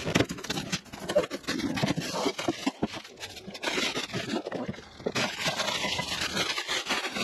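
Handling noise: scraping and rustling with many small clicks, as of a cardboard box being opened and its contents moved about.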